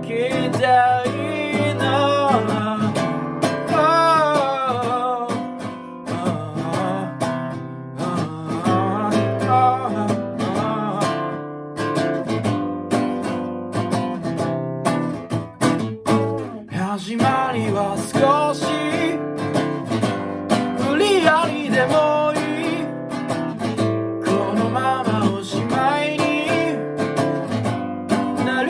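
Acoustic guitar being strummed and picked, with a wordless singing voice over it in several stretches.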